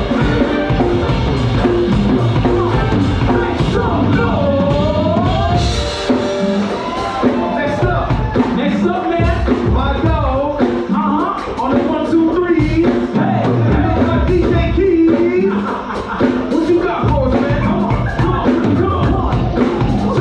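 Live band music: a gliding violin melody over a drum kit and backing track with a steady beat.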